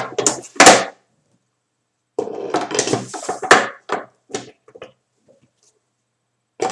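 Hard acrylic parts of a daguerreotype fuming box being handled as it is put back together: a few sharp knocks at the start, then pieces scraping and sliding into place with clicks, then a few light clicks a couple of seconds later.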